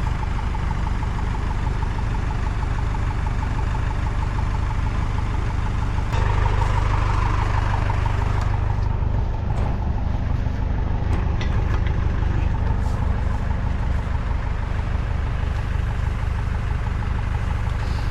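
A vehicle engine idling steadily, growing a little louder about six seconds in.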